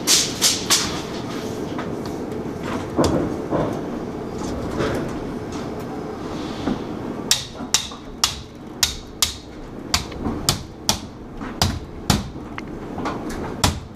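Sheet-metal ductwork being worked by hand: knocks and clatter, then from about halfway a run of sharp metal strikes at about two a second, as when a drive cleat is tapped on to join duct sections.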